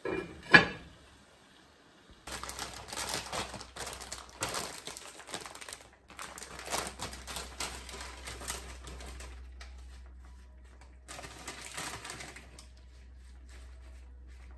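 A pan lid clanks against a skillet once, sharply, about half a second in. Then a plastic bag of spinach crinkles in spells as it is handled and opened.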